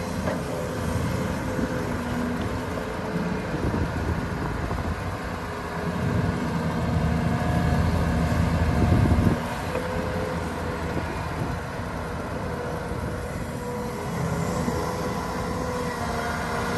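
Volvo excavator's diesel engine working steadily while digging and loading soil, with its hydraulics drawing on it. It gets louder for about three seconds midway, then drops back suddenly.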